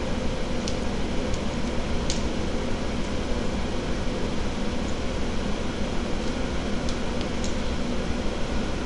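Steady mechanical hum with an even noise underneath, with a few faint light ticks scattered through it.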